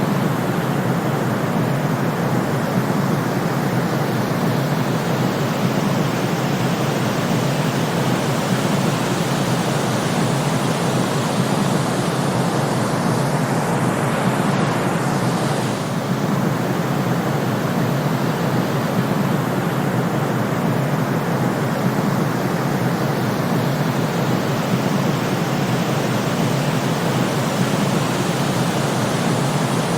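Steady synthetic sleep-aid noise, a constant hiss weighted toward low and middle pitches with the highs softened, dipping slightly for a moment about halfway through.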